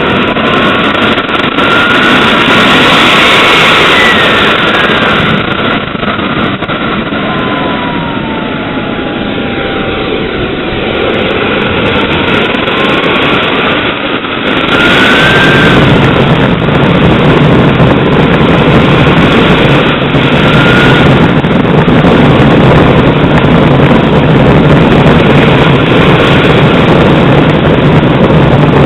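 Radio-controlled model jet's engine running up on the throttle, a loud rush with a whine that rises and falls in pitch several times. About halfway through it gets louder and fuller and stays there.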